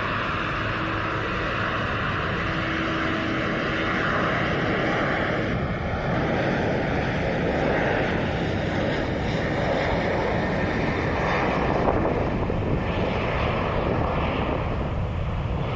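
Airbus A330-300 twin jet engines at takeoff power, a loud steady roar as the airliner departs, with a faint tone sliding slowly lower through it.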